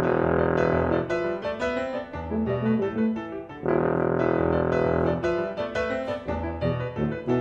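Tuba and Steinway grand piano playing a rag together: short, bouncing piano chords over the tuba's line, with long held notes about a second in and again in the middle.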